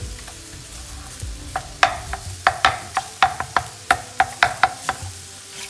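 Minced garlic and sliced mushrooms sizzling in a metal frying pan while a wooden spatula stirs them, knocking and scraping against the pan in quick irregular taps from about a second and a half in. The garlic is being fried until it gives off its aroma.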